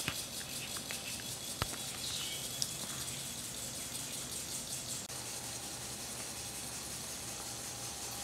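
Quiet room tone: a steady low hiss with a few brief, isolated clicks in the first few seconds.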